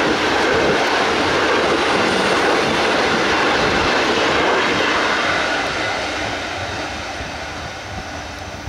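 Coal train rolling past on the rails, a steady dense rumble that starts to fade about halfway through as the train moves away.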